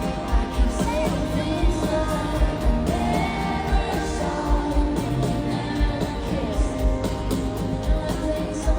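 Live pop song with band and singing: a sung melody over a steady kick drum beat.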